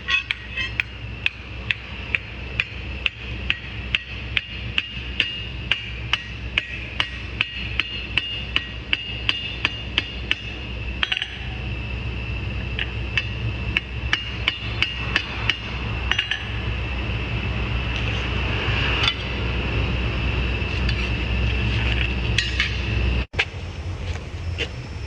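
Hammer blows on steel, as in forging a kitchen knife blade, striking evenly about twice a second, then less often about halfway through, over a steady low rumble.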